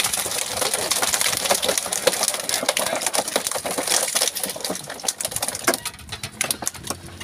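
Live pangasius catfish (patin) thrashing and slapping against each other and a plastic drum as they are tipped in from a net bag: a dense, irregular run of wet slaps and knocks.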